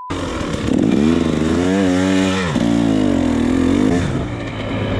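Dirt bike engine revving as the bike is ridden along a woods trail: the pitch climbs to a peak about two seconds in, drops sharply as the throttle is rolled off, then runs steadier at lower revs.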